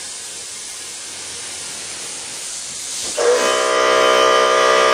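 Airbrush spraying with a steady hiss of air. About three seconds in, the air compressor kicks on with a loud, steady hum that carries strong tones.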